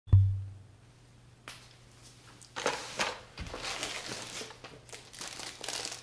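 A sharp thump at the very start, then from about a second and a half in, irregular rustling and crinkling of a laptop's packaging as it is handled and unboxed.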